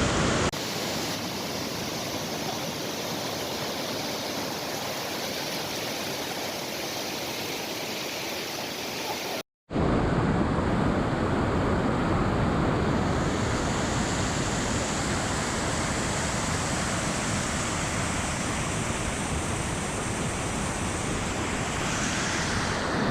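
Waterfall rushing steadily. The sound cuts out for a moment about nine and a half seconds in, then resumes.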